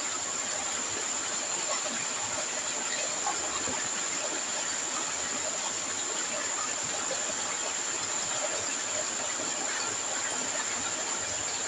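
Steady rushing of slurry draining through plastic pipes into cloth sacks as the processing drums are unloaded, with a constant high-pitched whine over it.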